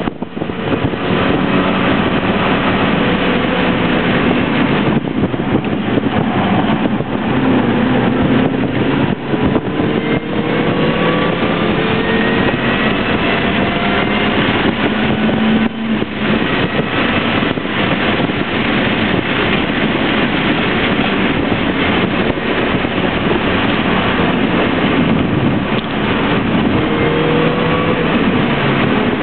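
MINI Cooper's engine running hard on a race track, heard from inside the cabin, its pitch rising several times as the car accelerates. Wind and tyre noise run underneath.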